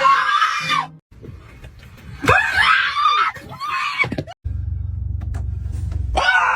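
A person screaming in fright in three loud bursts: one ending about a second in, a longer one in the middle, and another near the end. A steady low hum fills the gap before the last scream.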